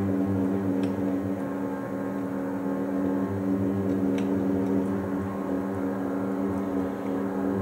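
Small electric motor and reduction gearing of a 2mm-scale model shunting tractor whirring steadily as it drives, a constant multi-toned hum with a few faint ticks.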